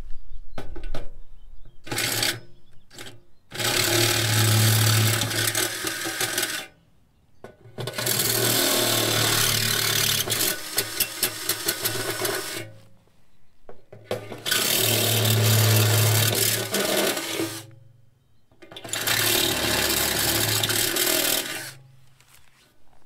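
Cordless drill with a step bit boring out bolt holes in a metal seat bracket, run in four long bursts of a few seconds each with short pauses between, after two brief blips of the trigger.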